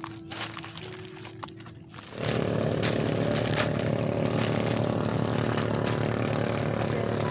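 Light rustling and clicks of plastic bags and snack packets being handled. About two seconds in, a loud, steady motor drone starts suddenly and holds evenly.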